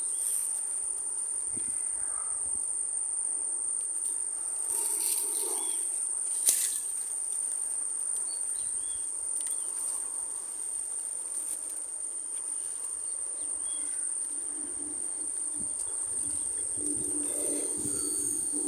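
Steady, high-pitched trilling of insects in marshy vegetation, with a few faint bird chirps and one sharp click about six and a half seconds in.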